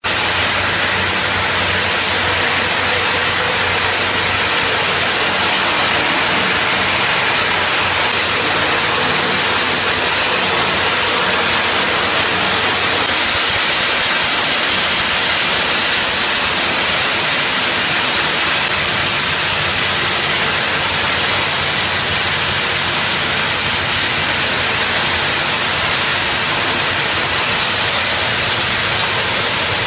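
Scrap-steel crushing and sorting line running: a loud, steady, dense rushing noise of the crusher and conveyors handling shredded metal.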